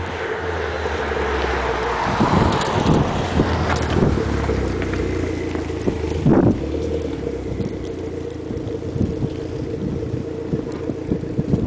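Dodge SRT-4's turbocharged 2.4-litre four-cylinder engine running with a steady note. A few short sharp bursts sit over it, the loudest about six seconds in.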